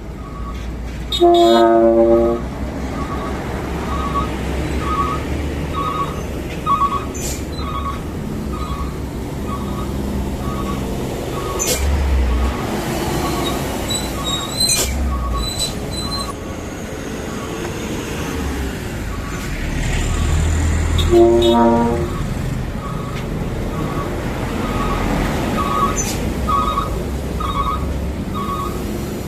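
Heavy dump truck sounding its trumpet-style air horn twice, a chord-like blast of about a second each, once near the start and again about 21 seconds in, over the diesel engine's steady low rumble. A faint regular beeping, about two beeps a second, runs underneath.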